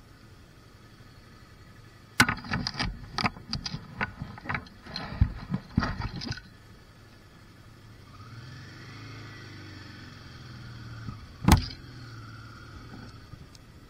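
A burst of sharp clicks and knocks, then a motorcycle engine running at low revs, its pitch rising a little as the bike moves off. One loud sharp knock comes near the end.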